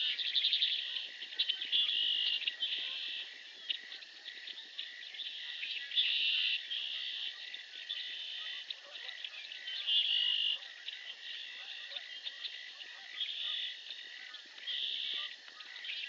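Marsh chorus of calling animals: repeated buzzy trills, each about half a second to a second long, over a steady high tone.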